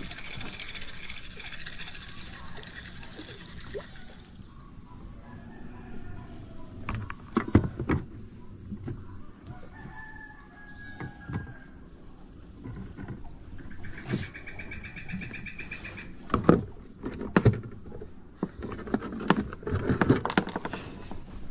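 A rooster crowing, with several sharp knocks and clatter of fishing gear against the hull of a small boat.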